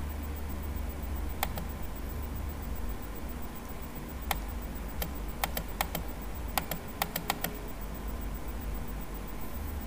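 Computer mouse clicking: about a dozen sharp single clicks, one early and the rest in a quick run through the middle, over a low steady hum.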